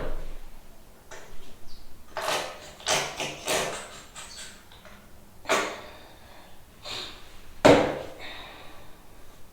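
Knocks and clatters of objects being handled and set down: a quick cluster about two to three and a half seconds in, another knock later, and the loudest thump about three-quarters of the way through.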